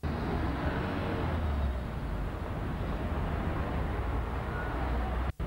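Street traffic noise picked up by a camcorder microphone: a steady wash with a low rumble underneath. The sound drops out briefly near the end at a tape cut.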